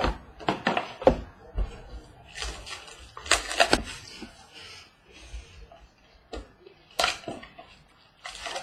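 Trading-card boxes and packs being handled on a table: a run of knocks and taps, a rustle of packaging about three seconds in, and a sharp knock about seven seconds in.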